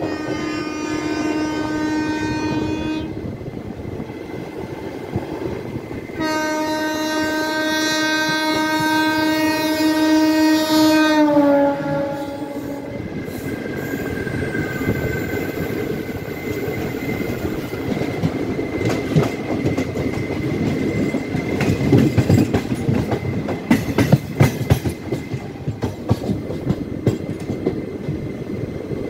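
Train's air horn sounding twice: a blast of about three seconds, then a longer one of about five seconds whose pitch sags as it cuts off. The coach then rumbles on with wheels clattering over rail joints, the clicks thickest in the second half.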